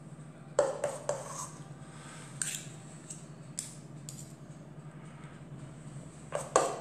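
Teaspoon clinking and scraping against dishware as choux paste is scooped and portioned out: a handful of short, separate clinks at irregular intervals over a steady low hum.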